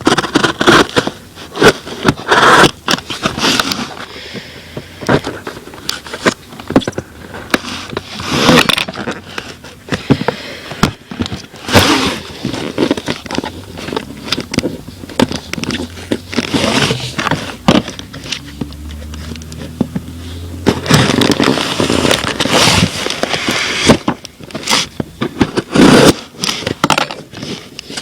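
A cardboard box being opened and unpacked by hand: irregular scraping, crackling and rustling of cardboard, tape and packing material, with sharp clicks and knocks throughout.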